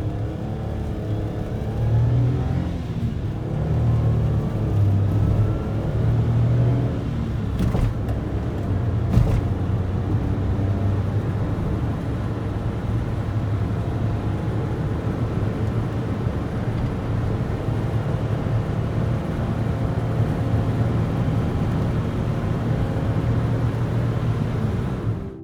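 Daihatsu Move's 1.0-litre three-cylinder engine under way. Its revs rise and fall a few times in the first several seconds, with two short knocks around eight and nine seconds in, then it settles into a steady low drone.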